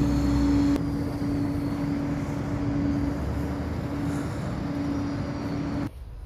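Steady outdoor city noise: a constant hum over an even rushing sound, like traffic. It cuts off abruptly near the end.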